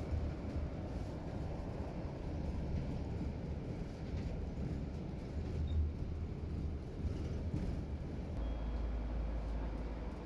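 Moving city bus heard from inside the cabin: a steady low rumble of engine and road noise, settling into a steadier low hum near the end.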